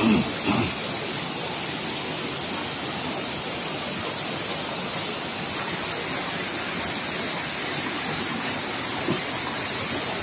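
Small jungle waterfall running steadily over rocks into a pool, an even rushing hiss of falling water, with a couple of brief faint sounds near the start.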